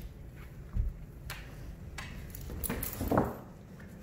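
Two dogs, a Cane Corso puppy and a larger dog, play-fighting: scattered thumps, scuffles and clicks of paws and bodies, with the loudest scuffle about three seconds in.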